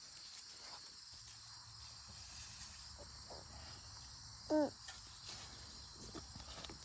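Insects chirring steadily in a high, even band, with a few faint scrapes and ticks. About four and a half seconds in there is one short pitched call, the loudest sound here.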